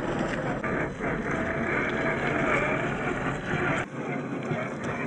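A 1/10-scale RC crawler's 20-turn brushed motor and gears whining, the pitch wavering with the throttle, over the noise of the tyres on dry leaves and stones. Near the end the sound breaks off and gives way to the truck wading through shallow water.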